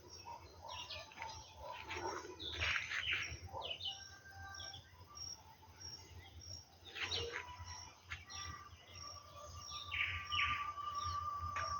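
Birds chirping in several short clusters of quick, high calls, over a low steady hum.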